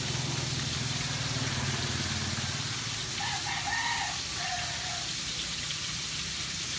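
A rooster crowing once, about three seconds in, a call of under two seconds that rises and falls in pitch, over a steady background hiss. A low hum runs underneath and stops shortly before the crow.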